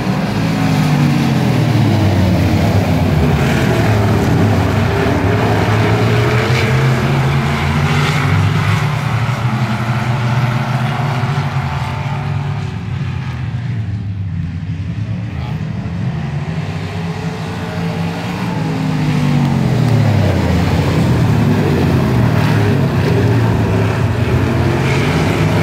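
A field of dirt-track sportsman race cars running laps, their V8 engines rising and falling in pitch. The sound swells as the pack passes close, fades about halfway through as the cars run the far side, then swells again near the end.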